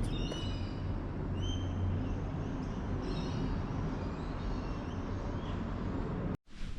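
Steady low rumble of traffic with short, high bird chirps over the first few seconds; the sound cuts off abruptly near the end.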